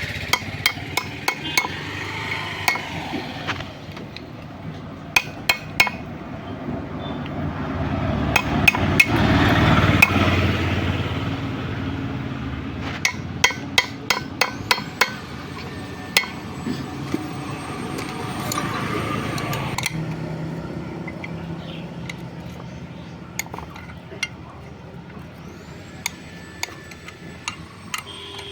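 Irregular sharp metallic taps and clinks of hand tools on metal motorcycle parts. Underneath, an engine rumble swells and fades, loudest about ten seconds in and again near twenty seconds.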